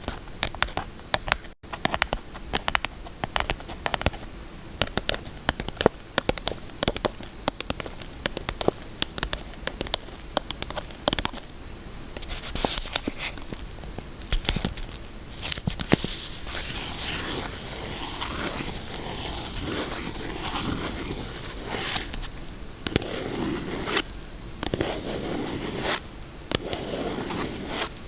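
Rapid, irregular tapping on soap, giving way about halfway through to denser scratching and crackling with short pauses.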